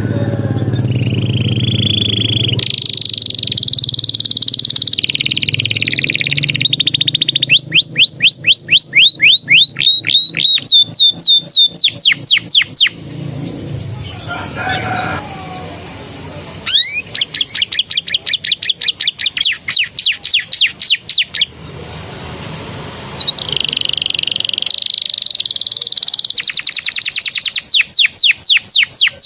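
Canary singing in phrases: stretches of steady high warbling alternate with fast runs of repeated, sharply sweeping notes, about four a second. The phrases are prinia-like 'isian' borrowed from ciblek and prenjak song. A short break falls near the middle, then a fresh run of repeated notes follows.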